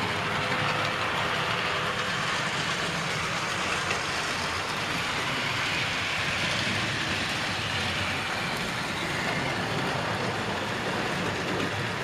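Model railway trains running on the layout: the small electric motors of the locomotives whirring and the wheels rolling steadily over the track.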